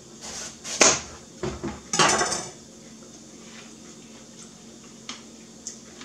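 A kitchen knife slicing through watermelon rind and knocking against a cutting board: a sharp knock about a second in, a couple of smaller knocks, then a short crunching cut, followed by a few faint clicks.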